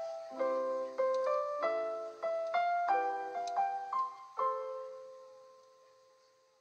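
Background piano music: a run of struck notes and chords, ending about four and a half seconds in on a chord that rings on and fades away.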